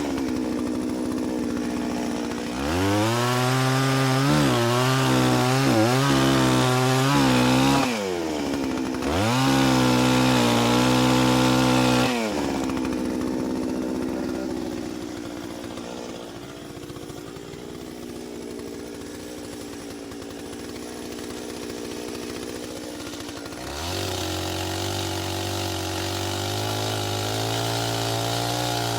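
Two-stroke chainsaw engine running with the throttle worked: it revs up and blips several times in the first twelve seconds, settles back to a lower idle for about ten seconds, then picks up to a faster steady run near the end.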